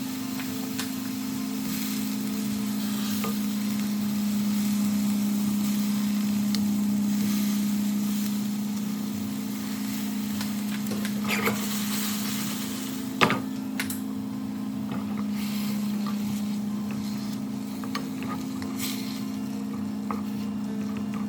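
Food sizzling in a pan while it is stirred, with scattered sharp clicks of a utensil against the pan, the loudest about 13 seconds in, over a steady low hum.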